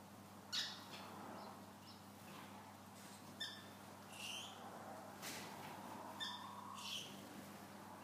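Small cage birds in an aviary giving about six short, sharp chirps and squawks, scattered at uneven intervals, over a faint steady hum.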